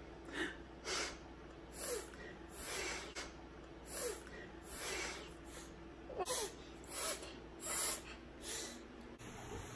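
A one-year-old blowing out hard through her nose over and over, soft snorting puffs about once a second, a few carrying a tiny falling squeak.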